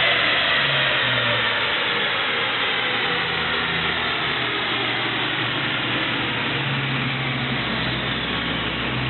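2004 Mustang Cobra's supercharged 4.6-litre DOHC V8 winding down after a dyno pull, its supercharger whine slowly falling in pitch as the revs drop. Near the end it settles toward a steadier, low idle.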